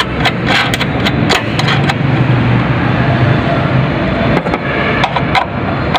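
A motor vehicle engine running steadily, with a run of short metallic clicks and knocks in the first two seconds and a few more about five seconds in.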